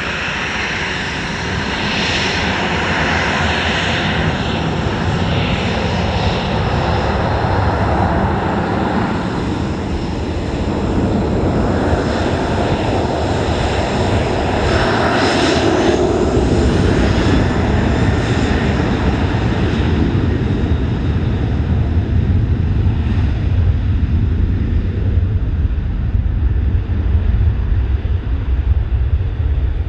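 Jet airliner's engines, loud and steady, growing louder over the span with a deepening rumble in the second half as the aircraft nears.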